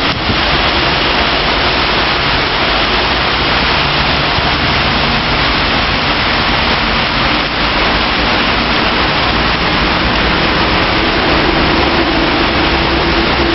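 Torrential rain pouring down in a steady, dense roar. A faint steady low hum joins in during the last few seconds.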